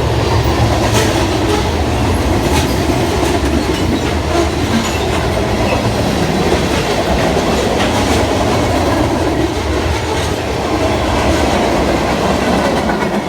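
Freight train cars rolling past in a steady rumble, with wheels clicking over rail joints now and then.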